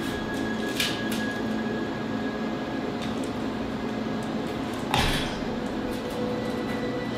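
Knocks and clicks of the enameled steel lid of a Weber Summit charcoal grill being handled and fitted onto the kettle, with a pair of light clicks about a second in and a louder knock about five seconds in, over a steady low hum.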